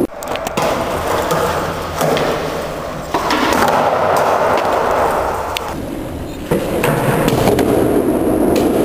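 Skateboard wheels rolling on a concrete floor, a steady rumbling noise that changes abruptly several times, with a few sharp clacks of the board.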